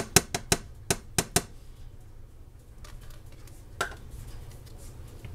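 A metal spoon tapping and clicking against plastic cups while knocking yogurt into a blender beaker: about seven quick taps in the first second and a half, then one more near four seconds.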